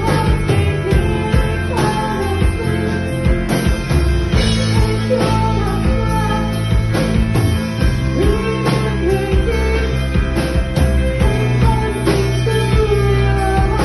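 Rock band playing live, with sustained low bass notes, a pitched melody line wavering above them and regular sharp drum strokes.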